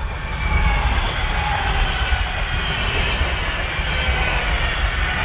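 Double-deck regional express electric train passing close by: a steady rumble and rush of wheels on rail, with a faint whine above it. It comes up loud right at the start and stays loud throughout.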